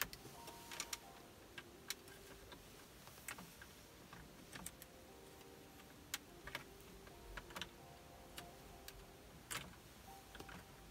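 Faint, irregular small clicks and taps of a screwdriver tip working at the hard plastic back of a car's climate control panel, around its T5 bulb holders.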